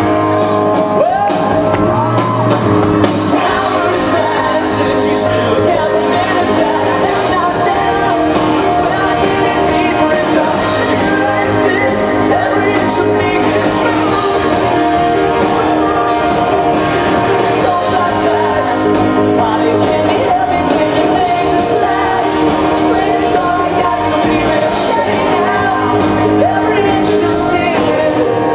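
Live pop-rock band: a voice singing over piano, electric guitar and drums, loud and steady, with shouts from the crowd.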